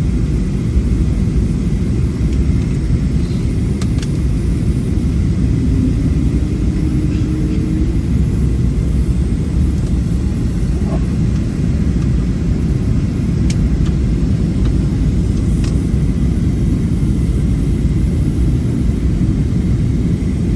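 Steady low rumble of a vehicle in motion, running evenly throughout and cutting off suddenly at the end.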